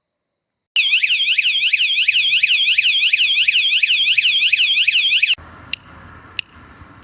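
Wireless anti-theft alarm siren for a motorcycle or bicycle, sounding a loud, fast, high warble of about five sweeps a second. It cuts off suddenly after about four and a half seconds.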